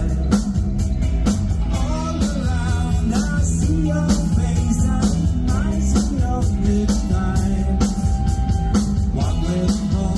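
Live rock band playing: electric guitars, bass and drums with singing, loud and steady.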